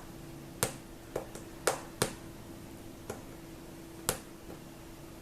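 Fingernail clicking and tapping on the iPad's glass and old screen protector as its edge is picked at to lift it off. About six sharp, separate ticks come at irregular intervals.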